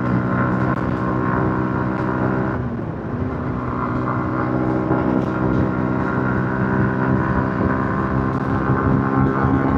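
Yamaha MT-15's 155 cc single-cylinder engine on its stock exhaust, running steadily while riding. About two and a half seconds in, the engine note wavers and dips briefly, then settles back into a steady note.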